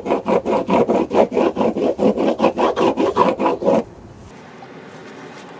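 A bar of Sticky Bumps top-coat surf wax rubbed quickly back and forth on a surfboard deck, about five strokes a second, stopping about four seconds in.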